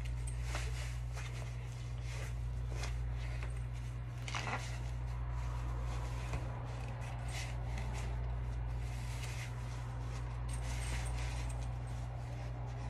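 Fabric rustling with scattered soft clicks and knocks as football clothing and gear are handled and put on, over a steady low hum.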